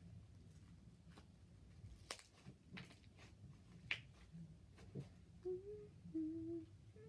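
Slime being squished and kneaded by hand, giving scattered faint sticky clicks and pops. About five seconds in, a woman starts humming a few soft notes.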